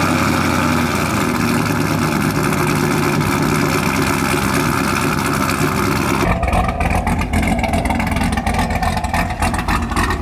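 Performance car's engine at fast idle just after a cold start, running steadily. About six seconds in the sound changes abruptly to a deeper, choppier run.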